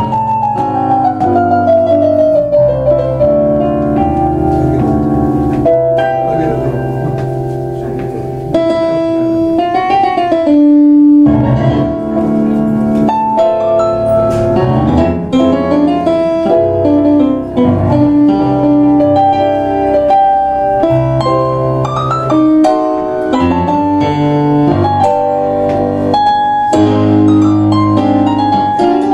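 A tango played as a duet on two digital stage pianos, one a Kawai MP6: both players are sounding chords and melody together. A sliding note falls in pitch over the first few seconds.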